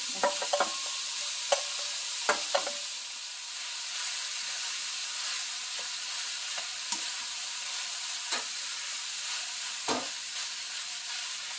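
Diced vegetables, ham and cooked rice sizzling steadily in a hot pan while a plastic spatula stirs and folds them for fried rice. Several sharp knocks of the spatula against the pan come in the first few seconds and again near the end.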